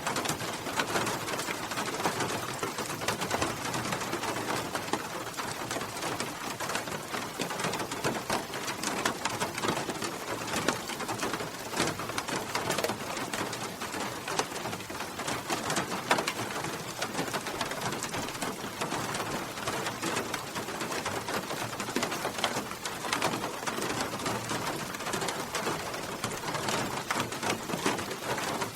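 Steady heavy rain: a dense, even patter of drops that keeps up without letting off.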